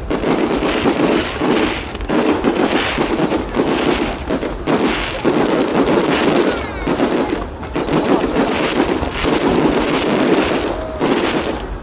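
Fireworks going off in rapid succession, a continuous rattle of bangs and crackles with no pause between them.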